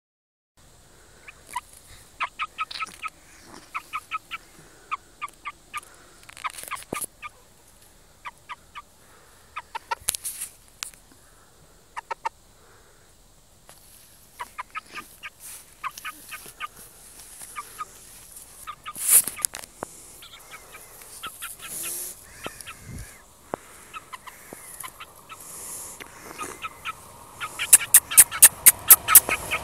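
A young Shamo chicken peeping: short, high calls in quick runs of several, with pauses between runs. Near the end comes a faster, louder run of about five calls a second.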